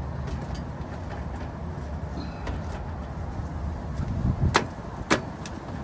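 Hand tools working a rusted exhaust clamp off an exhaust pipe: a few sharp metal clinks and clanks, the two loudest near the end, over a steady low hum.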